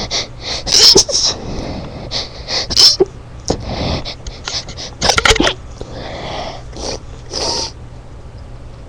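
A person's stifled sneezes: a run of short, sharp bursts, the loudest about a second in, near three seconds and just after five seconds.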